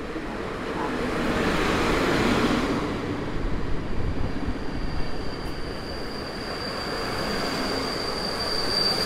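A PKP Intercity passenger train hauled by an EP07 electric locomotive runs past along the platform, its locomotive and coaches rumbling, loudest about two seconds in. About halfway through, a high steady wheel squeal sets in and grows louder.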